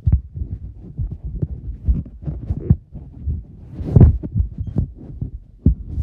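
Irregular low thumps and rumble of handling noise and footsteps on a handheld microphone, with a louder bump about four seconds in.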